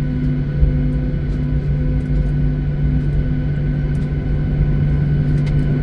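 Airliner cabin noise: the jet engines and airflow make a steady rumble with a constant low hum and a few fainter higher tones.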